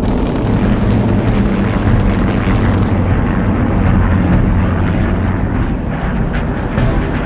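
Aerial combat sound effects: a heavy rumble of fighter aircraft engines with a rapid burst of machine-gun fire for the first three seconds, then scattered single shots.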